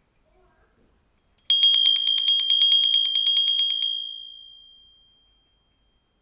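Small Christmas handbell shaken rapidly for about two seconds, about ten strikes a second, then left ringing out and fading. It rings as the signal that the ten-minute timer is up.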